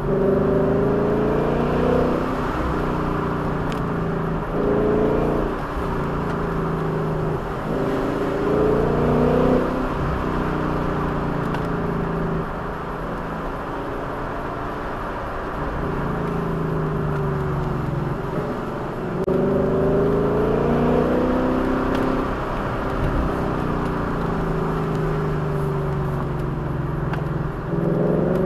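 A vehicle's engine being driven hard: the revs climb and fall again and again, with brief breaks where gears change, over a steady rush of road noise.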